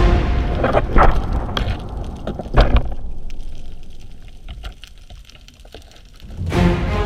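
Underwater speargun shot: two sharp knocks about a second and a half apart, the second with a heavy thump, as the band-powered speargun fires and the shaft goes out on its line. Soft underwater hiss with small clicks follows; background music fades out at the start and comes back near the end.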